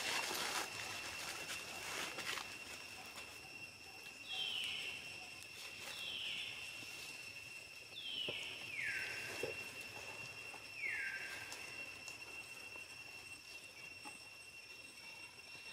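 A steady high-pitched insect drone over forest ambience, with four clear whistled calls from an animal, each falling in pitch, about two seconds apart; the last two fall lower and last longer.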